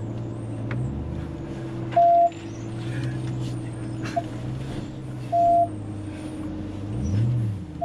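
Ram TRX's supercharged 6.2-litre V8 running low and steady as the truck crawls through mud, with one brief rev that rises and falls about seven seconds in. Short electronic beeps from the vehicle cut in several times over the engine.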